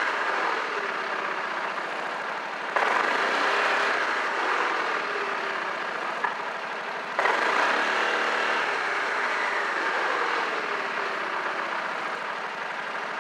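Yamaha Majesty 250C scooter's single-cylinder four-stroke engine, with an aftermarket muffler, idling and revved. The throttle is blipped about three seconds in and again about seven seconds in, and each time the revs sink back slowly toward idle.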